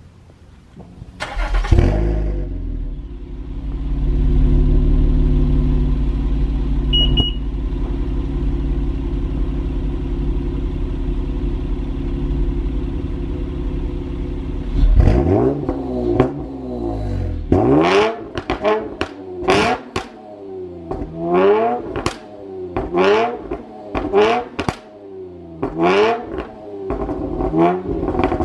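Car engine and exhaust from the rear: it cranks and fires about a second and a half in, settles into a steady idle, then from about halfway is revved in many quick throttle blips, each rising and falling in pitch, about one a second.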